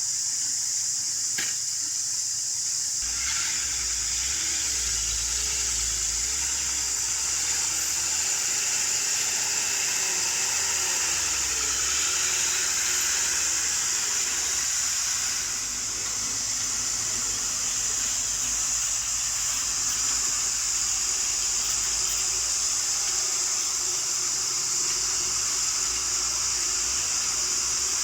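Caterpillar excavator's diesel engine running under a steady, high-pitched hiss that is the loudest thing throughout. A low rumble comes in about three seconds in.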